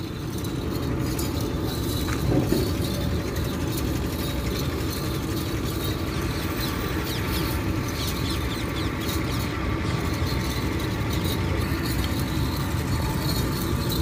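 Steady outdoor background rumble with a faint continuous hum, and no distinct events.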